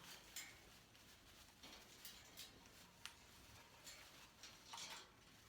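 Near silence, with a few faint scattered ticks and a soft brief rustle near the end.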